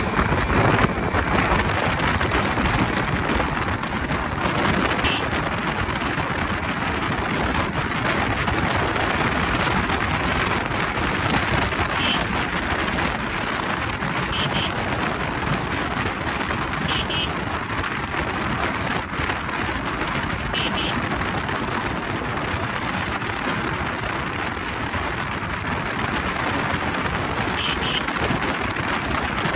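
Steady rush of wind over the microphone of a moving Honda CBR motorcycle, a dense roar of air and road noise with no clear engine note. Short high double chirps sound faintly a few times.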